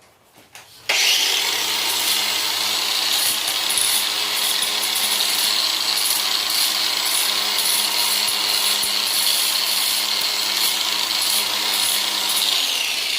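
Electric grinder running steadily on steel, switched on about a second in and shut off near the end, where it spins down.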